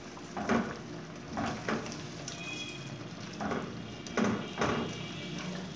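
Silicone spatula stirring mango pieces in simmering sugar syrup in an aluminium pot, scraping against the pot in about half a dozen short strokes, over a steady sizzle from the syrup.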